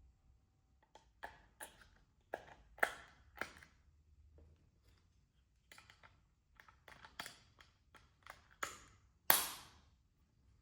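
Hands handling a stud finder and its packaging: about a dozen sharp clicks and knocks at irregular intervals. The last, about nine seconds in, is the loudest, with a brief ring after it.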